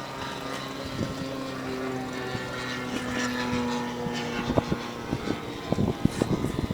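Propeller-driven model aircraft engine droning steadily. A cluster of sharp clicks and knocks comes in the second half.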